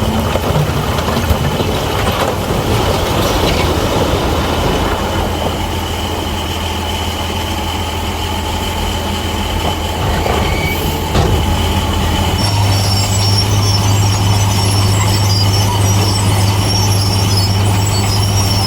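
Bulldozer's diesel engine running steadily, its pitch stepping up about two-thirds of the way in as it works harder. High squealing from the steel crawler tracks comes in at the same time.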